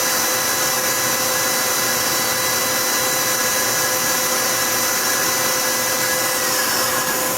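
Cross live-tool spindle of a 2011 Tsugami S206 CNC Swiss lathe running at 4,000 RPM: a steady whine of several tones, which winds down in pitch about six and a half seconds in as the spindle slows.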